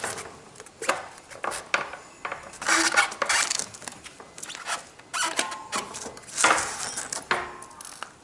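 Metal parts of a Honda Super Cub 110's front wheel and drum brake being handled by hand: a string of clicks, knocks and scrapes with a few short squeaks.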